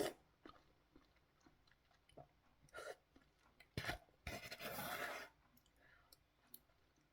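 Quiet eating sounds of a person having instant ramen: scattered faint clicks, a sharp knock a little before four seconds in, then about a second of dense noisy sound.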